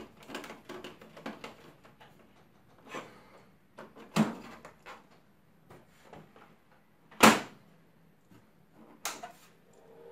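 Hard plastic clicks and knocks from the front of a Xerox WorkCentre colour copier as its orange locking lever is turned, then the front cover is swung shut, giving the loudest thud about seven seconds in and another knock about two seconds later.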